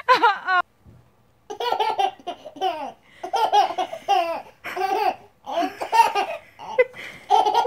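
A baby laughing in a long string of short, high-pitched bursts, after a brief high squeal in the first half-second.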